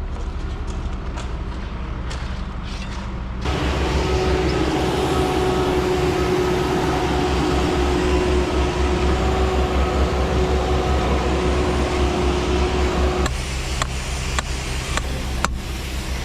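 A machine's engine running steadily. About three seconds in it gets louder, adding a steady whine and hiss, then drops back to its lower level about thirteen seconds in. A few short knocks come near the end.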